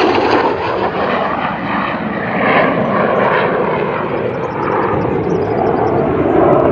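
Loud, steady jet noise from a MiG-17's afterburning turbojet as the fighter climbs away with its afterburner lit.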